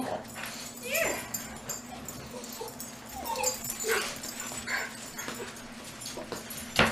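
Miniature schnauzers whining and yipping in short rising and falling calls while they wait to be fed. A single sharp knock comes near the end.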